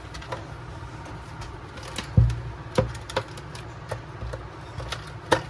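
Handling noise from plastic headphone parts: irregular sharp clicks and taps with a louder low thump about two seconds in, over a steady low hum.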